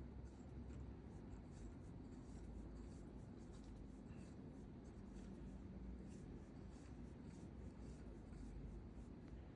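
Faint light scratching and small ticks of a 3/8 UNC threaded rod being screwed by hand into the camshaft's bolt hole, over a low steady hum.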